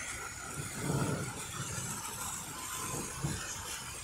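Fountain jets splashing into a stone basin, a steady rushing of water, with low rumbles swelling about a second in and again near the three-second mark.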